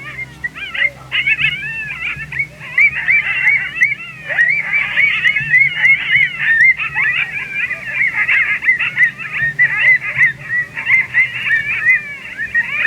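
A pack of coyotes yipping and howling together, many high wavering yelps overlapping into a continuous group chorus that builds from about a second in.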